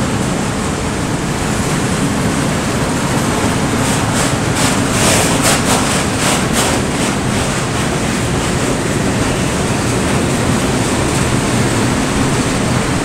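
Freight train of high-sided open wagons rolling through the station at speed: a steady rumble and rush of steel wheels on the rails, with a quick run of sharp clacks about four to seven seconds in.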